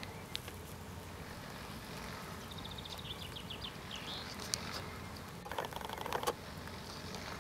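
Outdoor ambience with a small songbird singing a quick run of high notes about midway. A few sharp clicks, then a burst of crackling rustle near the end, over a low steady background hum.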